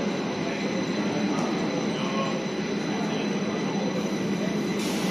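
SBB fire-fighting and rescue train rolling past alongside the platform: a steady rumble of wheels on rail with a thin, steady high-pitched squeal over it.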